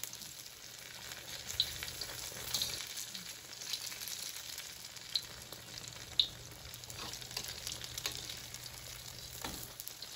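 Egg sizzling as it fries in hot oil in a wok, a steady hiss, with a few sharp clicks of metal tongs against the pan as the pieces are turned.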